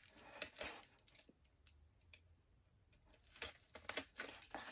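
Faint handling of comic books: soft rustles and light taps and clicks as books are moved about, with a quiet stretch in the middle.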